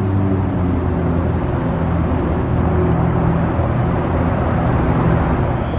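A motor vehicle engine running steadily amid road traffic noise.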